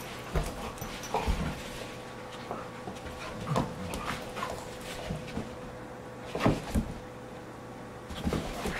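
Two dogs play-fighting: short, irregular growls, huffs and yips with soft bumps of bodies on carpet, the loudest about six and a half seconds in.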